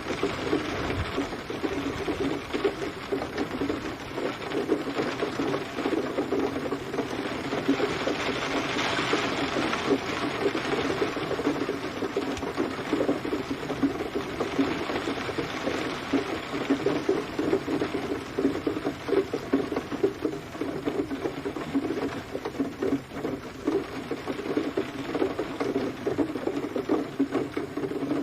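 Steady rain, a dense, even patter of countless drops.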